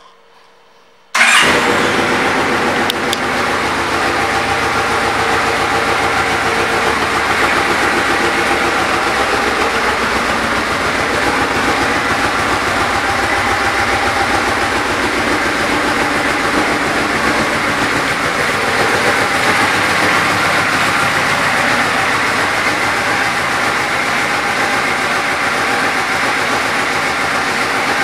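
A 2011 Yamaha Royal Star Venture S motorcycle's 1294 cc V4 engine starts about a second in, then runs steadily at idle.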